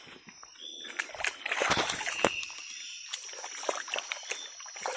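Feet splashing and sloshing in shallow stream water, in uneven bursts, loudest about two seconds in.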